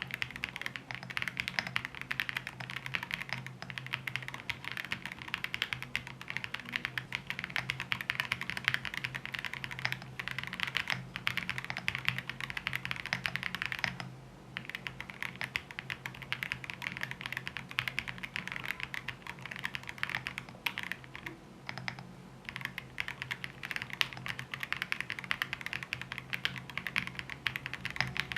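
Continuous fast typing on a Chaosera Cupid65 gasket-mounted mechanical keyboard with Cupid switches and XMI Cat keycaps, a dense run of keystrokes with a brief pause about halfway through.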